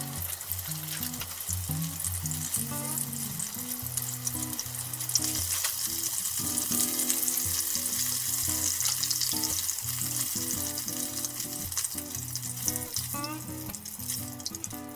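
Tempura-battered prawns shallow-frying in oil in a frying pan: a steady sizzle, loudest around the middle, with small clicks as the pieces are turned.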